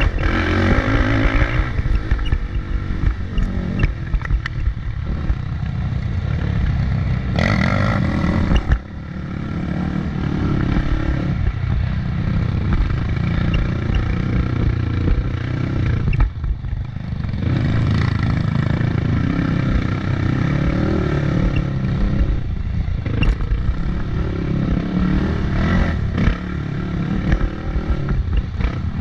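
Motorcycle engine running and revving under changing throttle, with a heavy rumble and some clatter; it drops off briefly about a third of the way in and again a little past halfway.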